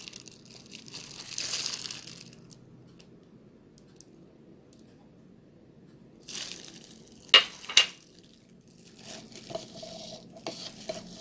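Clear plastic kitchen glove crinkling and rustling in short bursts with pauses as it handles seasoned peppers in a stainless steel bowl, with two sharp clicks in quick succession about two-thirds of the way through.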